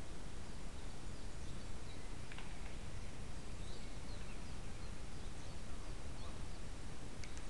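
Steady microphone hiss of a trail camera in woodland, with faint short bird chirps scattered through it and a couple of faint clicks.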